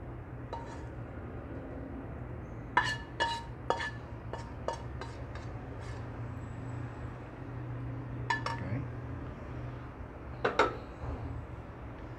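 Spatula scraping food out of a wok into a ceramic serving dish: a quick run of about nine sharp clinks with brief ringing between about three and six seconds in, then two more single knocks later, over a steady low hum.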